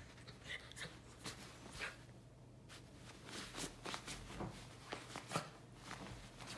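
Comforter rustling and scratching as a miniature poodle paws at it and burrows its nose into it: a string of short, irregular rustles.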